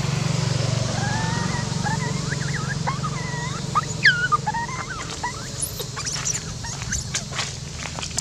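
Baby long-tailed macaque crying in a run of thin, high squeals that bend up and down, the sharpest rising squeal about four seconds in. A low steady drone sits under the first few seconds, and dry leaves crackle near the end as the monkeys move.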